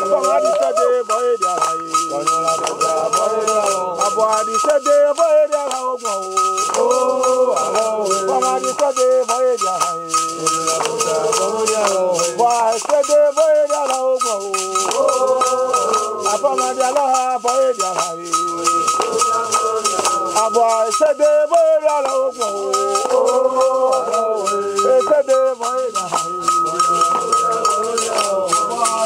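Men's voices singing a chant led by one man, with a steadily shaken rattle and handclaps. A steady high-pitched tone runs underneath.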